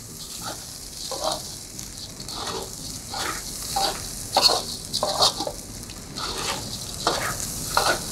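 Raw rice and garlic sizzling in hot oil in a pan, stirred with irregular scraping strokes against the pan as the rice is toasted before any liquid goes in.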